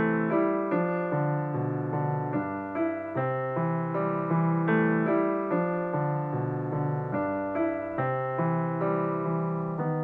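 Background piano music, with notes struck one after another in a steady rhythm.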